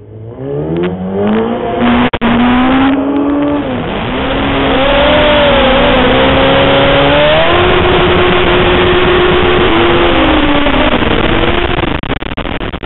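Sport bike doing a burnout: its engine revs climb over the first couple of seconds and are then held high while the spinning rear tyre squeals against the pavement in a loud, steady hiss with wavering squealing tones.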